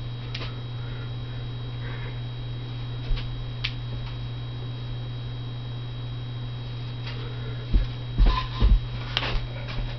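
Steady low electrical hum with faint room noise, broken near the end by a few low thuds as someone steps and lunges on the floor.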